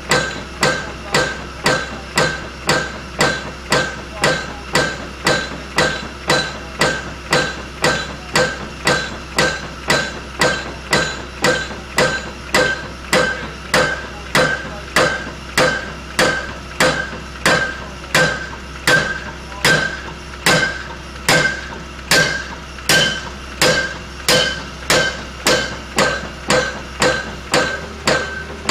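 Dawson hydraulic piling hammer driving a pile, striking steadily at just under two blows a second, each blow a sharp metallic clank with a brief ring. A steady engine hum runs underneath, and the blows stop at the very end.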